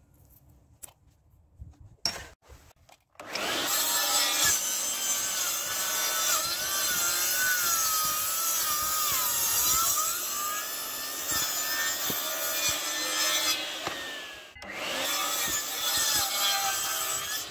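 DeWalt sliding mitre saw cutting through a thick block of old pallet wood, its whine wavering and dipping as the blade takes the load. The first cut lasts about eleven seconds, stops briefly, and a second pass starts. A few light handling clicks come before the saw starts.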